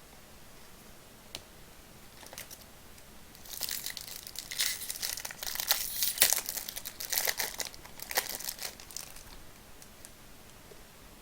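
A Topps Chrome jumbo trading-card pack's foil wrapper being torn open and crinkled. A few light clicks come first, then dense crinkling and tearing from about three seconds in that lasts about six seconds.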